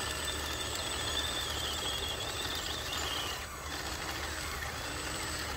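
Radio-controlled toy crawler bulldozer running as it pushes dirt and backs up: a steady mechanical hum with a wavering high whine that fades about three seconds in, then a brief dip in the sound.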